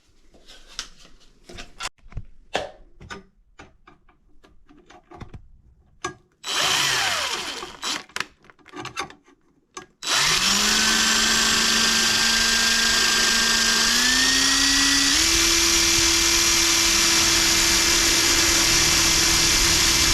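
Handheld power drill: a short run that winds down, then a long steady run whose speed steps up twice. Scattered small clicks and knocks of handling come before it.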